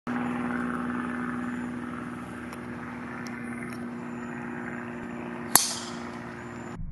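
Driver club head striking a golf ball off the tee: one sharp, loud crack about five and a half seconds in, over a steady low hum.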